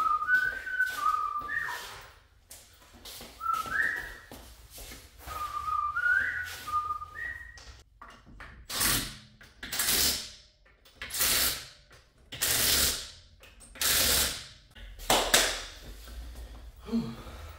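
A man whistling a few short notes to himself, with light metallic taps. Then a cordless impact driver runs in six short bursts about a second apart, spinning lug nuts onto a car wheel.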